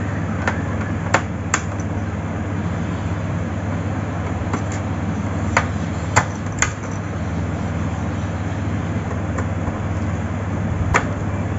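Several sharp clicks of a screwdriver and small screws against an inkjet printer's plastic case as its screws are taken out, in small clusters a few seconds apart, over a steady low hum.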